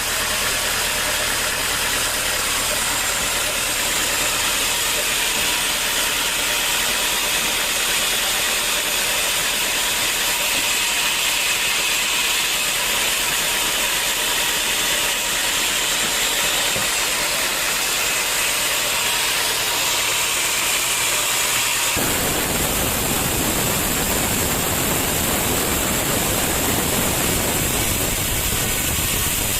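Sawmill saw machinery running with a steady, loud hiss. About 22 seconds in the sound changes abruptly and a low rumble joins it.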